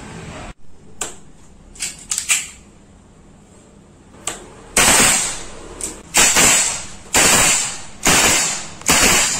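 Webley Mark VI CO2 revolvers being fired. A few light clicks come first, then from about halfway through five sharp shots about a second apart, each tailing off briefly.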